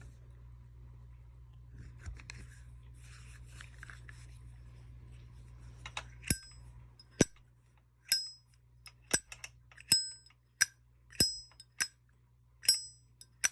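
Zippo lighter lids being flicked open and snapped shut, about a dozen sharp metallic clicks roughly once a second, each with a bright ringing 'ching', starting about six seconds in after faint handling. The lighters have gone two weeks without maintenance.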